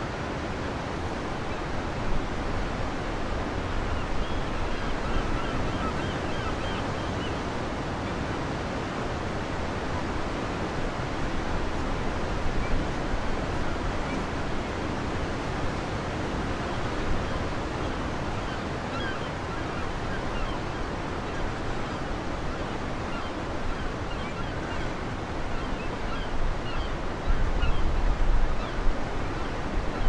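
Sea surf washing steadily against a rocky, shingle shore. Near the end, gusts of wind buffet the microphone with a low rumble.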